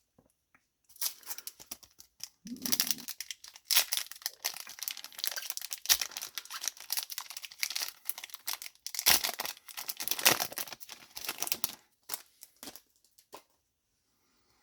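Foil wrapper of a Yu-Gi-Oh booster pack being crinkled and torn open, an irregular crackling rustle that starts about a second in and dies down near the end, leaving a few faint ticks.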